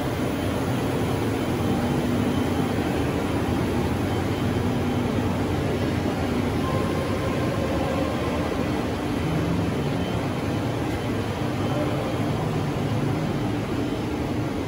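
Steady hum and rush of a factory hall: ventilation and running machinery, with a few faint steady tones and no distinct knocks or events.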